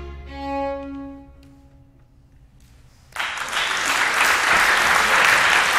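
A baroque string ensemble plays the final held chord of the aria, which fades away into a moment of quiet. Audience applause then breaks out suddenly about three seconds in and continues.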